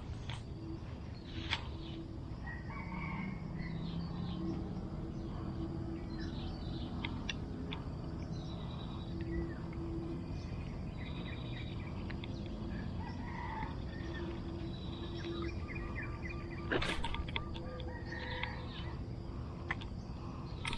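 Birds calling in the background, with a few sharp clicks, the loudest about 17 seconds in.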